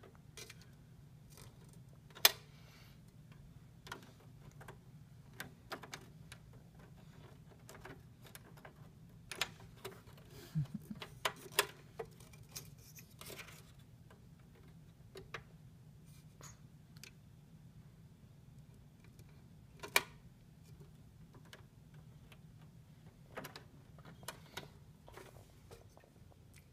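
Scattered clicks and knocks of a toddler's hand pressing the buttons of a portable radio-CD stereo and handling it, at irregular intervals with a few much sharper ones, over a steady low hum.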